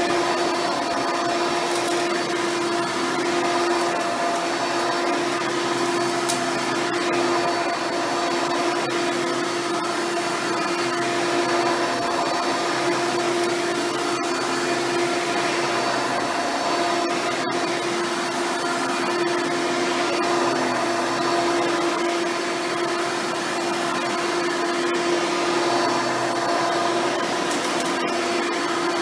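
Hoover Elite-style upright vacuum running steadily, its motor giving an even whine over the rush of air. A newly fitted belt drives the brushroll during a test run to show it works.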